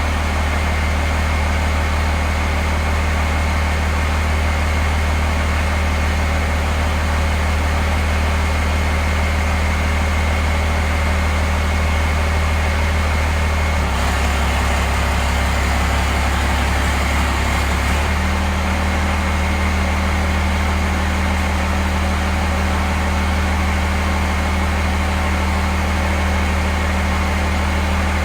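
Pickup truck engine running at a steady idle. The engine note rises slightly for a few seconds about halfway through, then settles back.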